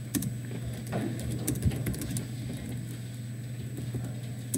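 Computer keyboard typing: irregular keystroke clicks over a steady low hum.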